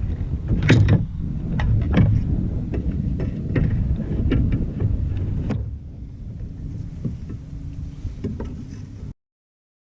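Low rumbling noise aboard a fishing kayak with scattered sharp knocks and clicks from the hull and gear. It quietens about halfway through, then cuts to dead silence near the end.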